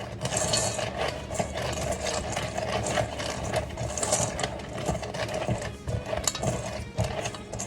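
A plastic knife stirring and scraping through a bowl of dog food mix: a steady run of quick, irregular scrapes and clicks.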